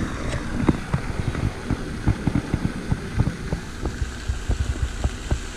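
Wind buffeting the camera microphone: a low rumble broken by many irregular low thumps.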